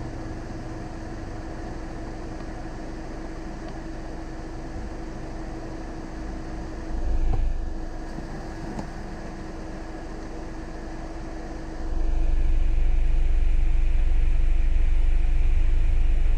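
Steady low motor-like rumble with a constant hum, swelling briefly about seven seconds in and then growing markedly louder about twelve seconds in, where it stays.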